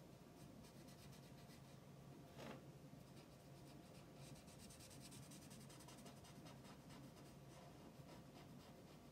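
Faint scratching of an alcohol marker's fine nib on paper in quick short strokes, busiest in the middle, with one brief louder rub about two and a half seconds in. A low steady hum sits under it.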